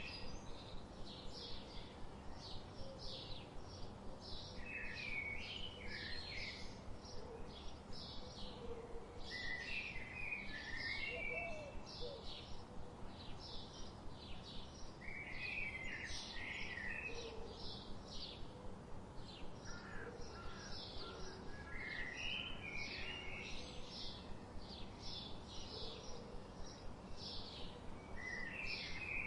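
Songbirds chirping and singing: a quick series of short high chirps keeps going, with a lower warbled phrase breaking in every five seconds or so, over steady low background noise.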